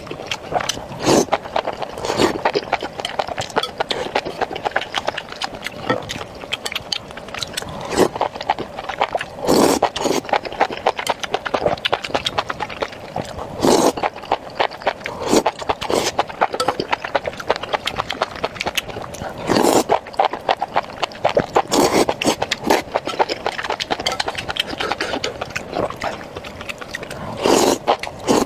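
Close-up eating sounds: a person chewing and slurping mouthfuls of fatty beef and enoki mushrooms in sesame sauce, with irregular wet smacks and clicks throughout.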